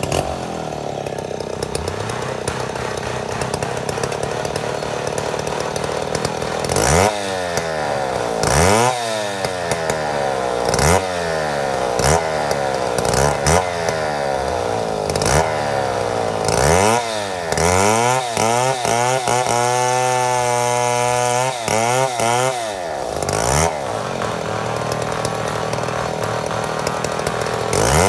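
Chainsaw running while milling a mahogany log. It holds a steady pitch at first; from about seven seconds in the engine pitch swings up and down every second or two, and it is held high for a few seconds past the middle.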